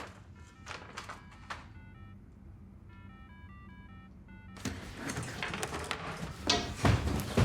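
Mobile phone ringtone for an incoming call, a faint short melody of stepped notes, followed from about halfway by louder rustling and knocks.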